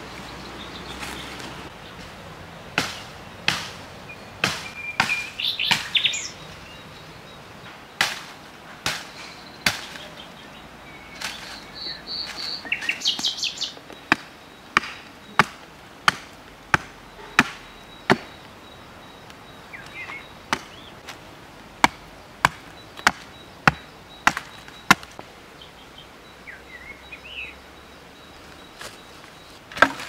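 Repeated sharp chopping blows, about two dozen in runs, the fastest run going about one and a half strikes a second, with small birds chirping now and then.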